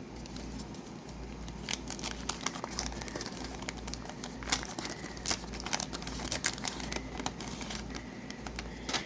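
Wax-paper wrapper of a hockey card pack being torn open and crinkled by hand, a run of irregular sharp crackles and rustles.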